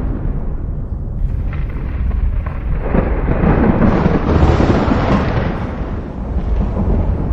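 Thunder rumbling low and continuously, with a louder roll swelling about three seconds in and dying away a few seconds later.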